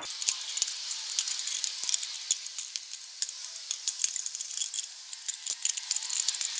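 Wire cutters snipping thin plastic gussets out of a plastic case: a quick, irregular run of small sharp clicks and snaps, with handling noise of the case and cutters between them.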